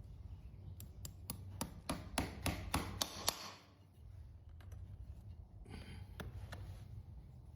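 Farrier's trimming tools working on hard hoof horn: a quick run of about ten sharp scraping strokes, roughly three a second, growing louder over a couple of seconds, then a shorter, softer scrape with a few clicks about two seconds later.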